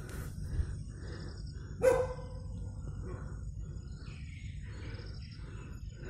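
A dog barks once, about two seconds in.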